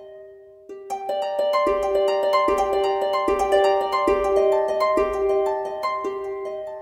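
Instrumental music: a gentle melody of quick plucked notes. After a brief dip at the start, the notes pick up and a soft low beat about every 0.8 s comes in.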